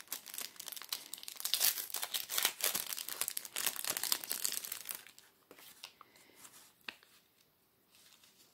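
Crinkling and tearing of a clear plastic packet being handled and opened by hand, dense for about five seconds, then dying down to a few faint rustles.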